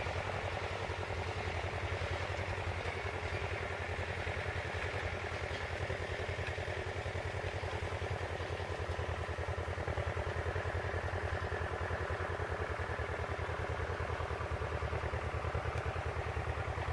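Diesel engine of an SM42 shunting locomotive running steadily with a low, even throb as it hauls a train of covered wagons away.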